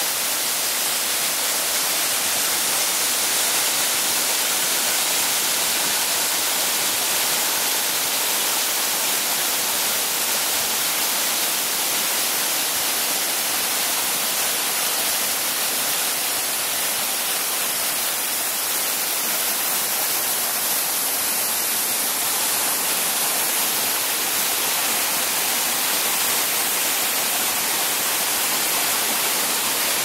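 Waterfall cascading over rock into a pool, a steady unbroken rush of water.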